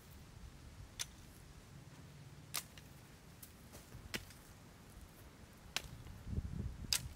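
Dry sticks clicking as they are laid one by one onto a small teepee of kindling on sand: about five short, sharp clicks spaced roughly a second and a half apart. Near the end a heavier, duller knock comes as a chunk of driftwood is set against the pile.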